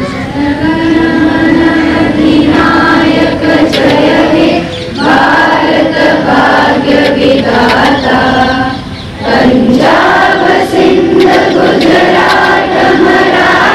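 A large group of voices singing together in unison, in long held phrases with short breaks about five and nine seconds in.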